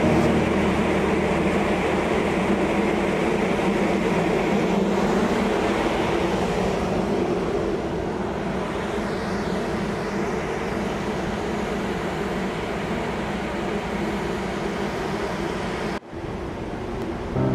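Steady machinery drone of a tanker heard from its open deck, a low hum under a rushing noise; it cuts off abruptly near the end.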